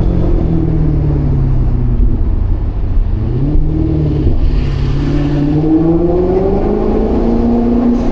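Maserati GranCabrio's Ferrari-derived 4.7-litre V8 running under way. Its note falls for the first two seconds, briefly rises and dips, then climbs steadily as the car accelerates over the last few seconds.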